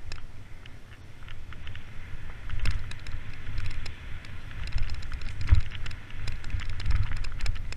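Mountain bike descending a dirt singletrack at speed: wind rumbling on the camera microphone, with the rush of tyres on dirt and frequent sharp clicks and rattles from the bike over the rough trail.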